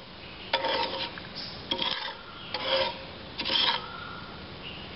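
Wooden spatula scraping over the bottom of a nonstick pan while stirring milk with undissolved sugar, in about half a dozen repeated strokes.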